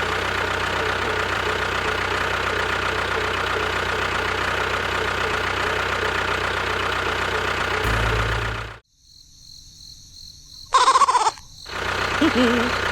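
A small motor running steadily, which cuts off abruptly about nine seconds in. After a short lull comes a brief, loud pitched cry, then the running sound starts again near the end.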